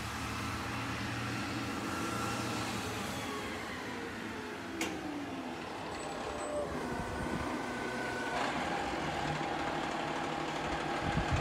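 Garbage truck engine running steadily on the street, with a single sharp click about five seconds in.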